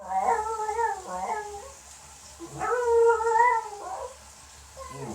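Parson Russell terrier singing: two long, wavering howls, the second starting about two and a half seconds in.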